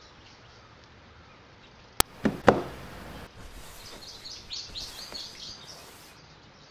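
Quiet room tone, broken about two seconds in by a sharp click and then two short louder rustles. Soft, irregular rustling of bedding and blanket follows as someone stretches and throws the covers off.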